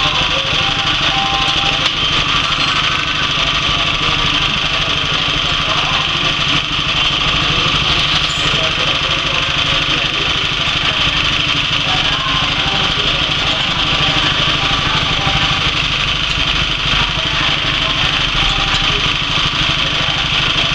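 Honda GX160 single-cylinder petrol engine running steadily at a constant speed, driving a wet coffee pulper.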